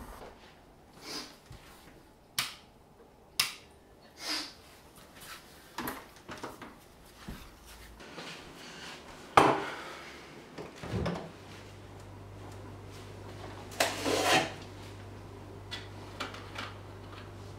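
Kitchen handling sounds: a string of clicks and knocks, the loudest a sharp knock about nine seconds in. After that a low steady hum sets in, and a burst of clattering follows as things in an open fridge are handled.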